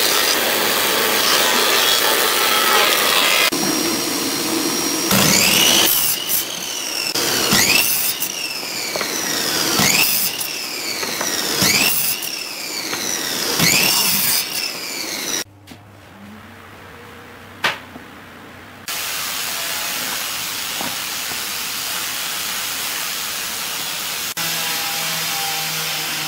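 Woodworking power tools: a thickness planer running at the start, then a miter saw making a run of about five cuts through pine, roughly two seconds apart, its motor rising in pitch as it spins up and falling as it winds down after each cut. A short quieter stretch follows, then steady machine noise.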